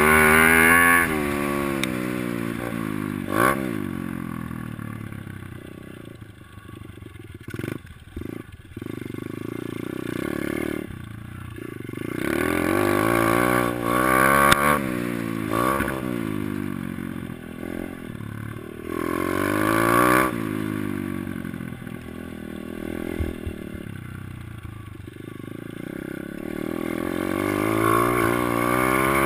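Kawasaki KLX110L's small four-stroke single-cylinder engine revving up and dropping back again and again as the throttle is worked on and off, with a few sharp knocks along the way.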